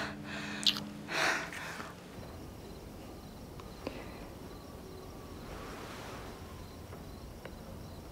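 Faint, steady night ambience of insects, crickets trilling softly.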